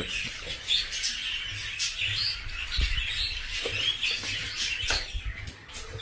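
Many small birds chirping and chattering continuously, with a few light clicks and knocks in between.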